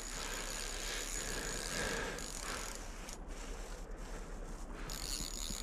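Spinning reel being cranked steadily with a fine mechanical clicking and whirring as a hooked fish is reeled up through the ice hole, with the drag set loose.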